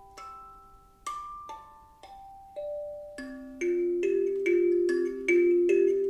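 Otoduke Sabmarine kalimba being played: a few quiet single notes stepping down in pitch, each ringing on, then from about three seconds in a louder, quicker repeated figure of lower ringing notes.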